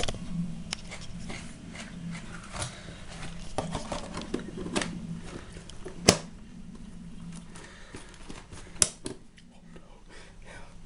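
Small clicks and knocks of items being handled in a kitchen, with two sharp, loud clicks about six and nine seconds in, over a steady low hum.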